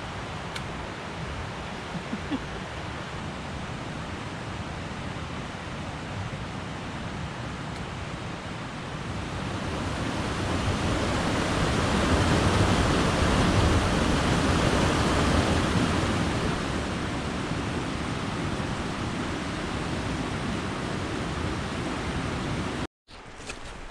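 Rushing mountain stream: a steady wash of water that swells louder about halfway through, broken by a short gap near the end.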